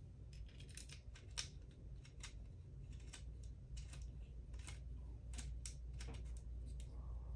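Faint, irregular small clicks and scrapes of a small screw being turned into a lightsaber hilt with an Allen key.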